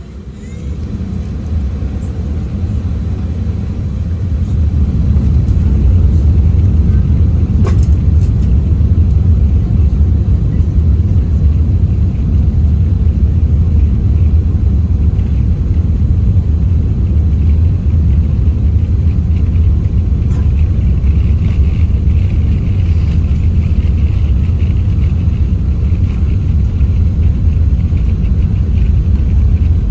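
Airbus A380 jet engines and airframe rumbling in the cabin during the takeoff roll. The low rumble swells over the first five seconds as thrust comes up, then holds loud and steady.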